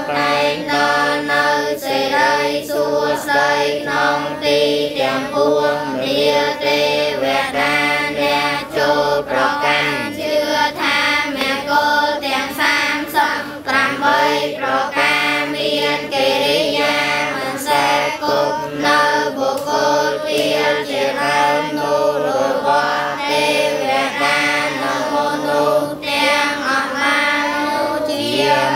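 A large group of children chanting Buddhist verses together in unison, a continuous rhythmic recitation over a steady low held note.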